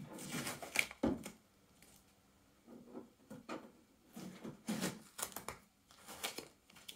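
Packing tape being pulled and peeled off the glass front door of a Bambu Lab P1S 3D printer, in several short, irregular rips and rustles with small clicks.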